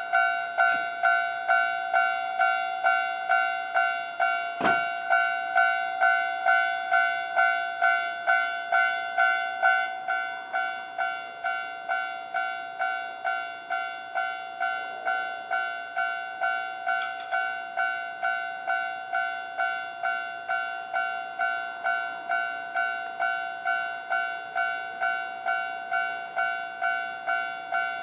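Railway level-crossing warning alarm ringing in a steady, even ding-ding rhythm of about two strokes a second, a little quieter after about ten seconds. One sharp knock sounds about four and a half seconds in.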